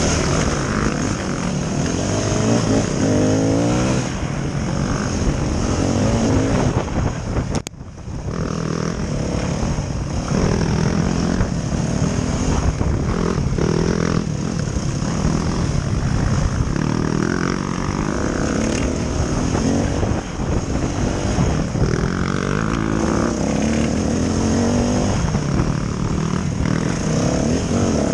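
Yamaha off-road dirt bike engine revving up and down under hard riding, heard from a helmet camera. It drops out sharply for a moment about eight seconds in.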